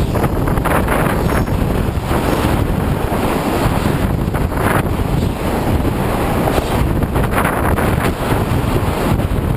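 Wind buffeting a camera on the trolley pole of a moving electric tram, mixed with rumble and rattling vibration carried up the pole from the running tram, with irregular crackles and clatters.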